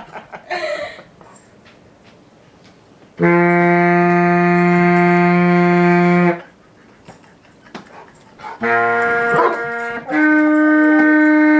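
Baritone saxophone playing three long held low notes. The first lasts about three seconds, then after a pause come two shorter notes back to back near the end.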